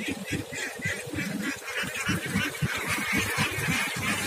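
A large flock of domestic ducks quacking all together in a dense, continuous chorus of short overlapping calls, with irregular low thumps underneath.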